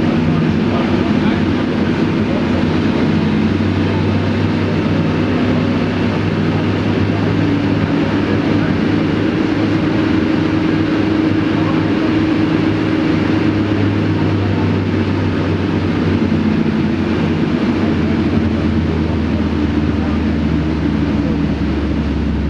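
Supercharged Toyota Yaris 1.5 four-cylinder engine running on a chassis dyno at a steady speed, its tone holding level, then dropping to a lower pitch about eighteen seconds in as it slows.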